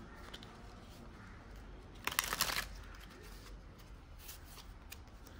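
A deck of tarot cards being shuffled by hand: a short, rapid riffle of card clicks about two seconds in, with faint rustling of the cards before and after.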